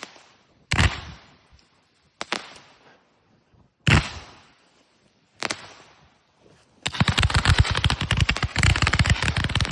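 Raccoon Fireworks USA250 consumer firework cake firing. Four separate loud reports come about a second and a half apart, each fading away, then about seven seconds in a dense, rapid barrage of pops begins, like machine-gun fire.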